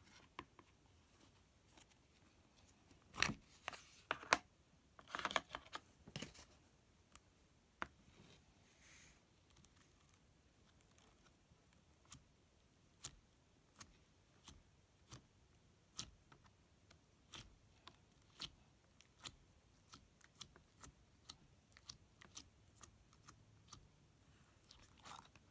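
Pink Flarp noise putty in a small plastic tub being pressed and poked with fingers, giving faint sharp clicks and little pops about once a second. A few louder plastic clicks come in the first several seconds as the tub's lid is worked off.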